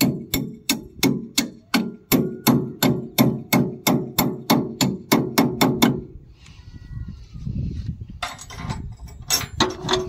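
Hammer blows on the metal of a combine harvester's cutter drive, about four a second with a metallic ring, for some six seconds. After a short pause a few more blows come near the end.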